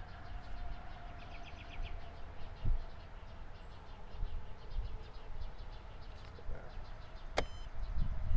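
Outdoor summer ambience of insects trilling and buzzing, with a low rumble of wind on the microphone. Near the end comes one sharp click as a blitz chess move is played.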